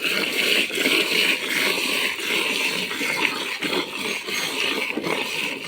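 Milk streaming and splashing into a pail as a cow is milked: a steady rushing, frothy noise.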